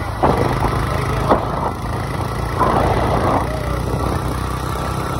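Road traffic: a motor vehicle engine runs with a steady low hum, and short swells of noise rise over it several times.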